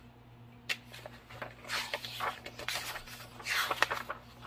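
Glossy paper pages of a large vintage Life Nature Library book being turned by hand: a light click, then two rustling swishes of paper.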